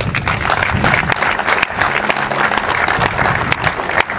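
Crowd applauding, many hands clapping at once; it breaks out suddenly.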